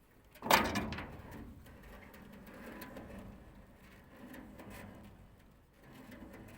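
A sudden loud knock about half a second in that dies away over about half a second, followed by quieter scattered knocks and rustling.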